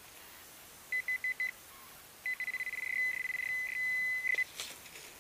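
A handheld metal-detecting pinpointer probe beeping in a dug hole. It gives four short beeps, then about a second later a run of rapid beeps that speed up and merge into a steady tone as it closes on a metal target.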